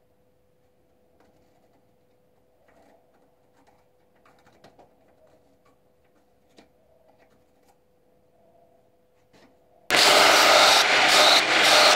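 Faint small ticks and scratches as a pencil marks ram's horn knife-handle scales, over a low steady hum. About ten seconds in, a loud belt grinder starts abruptly, sanding the horn scales pressed against the belt.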